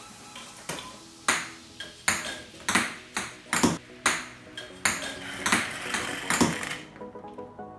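Background music made of bright, ringing ping-like struck notes at a steady pace, about one every two-thirds of a second.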